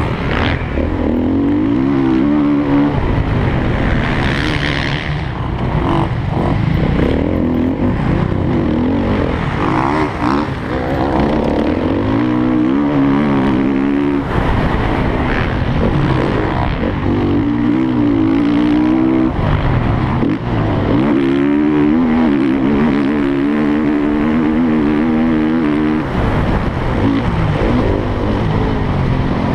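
Motocross bike engine heard onboard from the rider's helmet camera, running hard, its revs repeatedly climbing and falling as it races around the dirt track.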